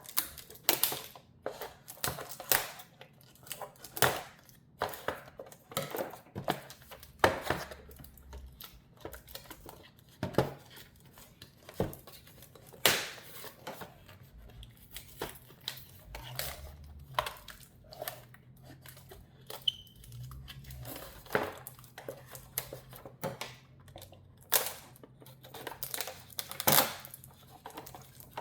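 Packaging being opened by hand: tape peeled and torn, with plastic and paper crinkling and small clicks and taps at irregular moments.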